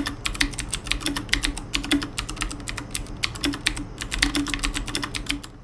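Typing on a Cooler Master MasterKeys Pro L mechanical keyboard with Cherry MX Blue switches: a fast, steady run of sharp, clicky keystrokes, several a second, stopping just before the end.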